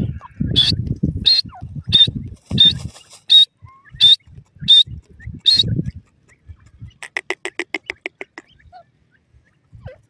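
Grey francolins calling: a regular series of sharp, high notes about every two-thirds of a second, each with a low thump under it. About seven seconds in there is a quick stuttering chatter of roughly a dozen notes a second.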